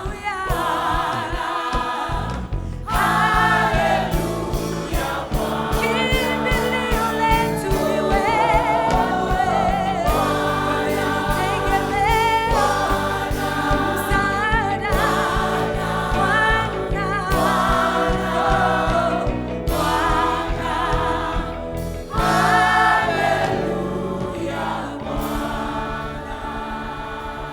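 Gospel choir singing with instrumental accompaniment and a steady beat, fading out near the end.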